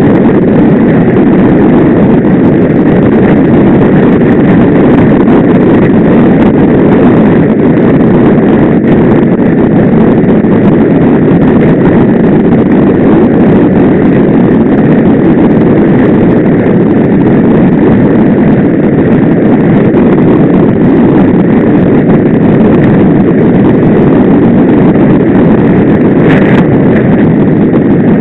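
Steady, loud wind rush on the microphone of a camera mounted on a moving bicycle.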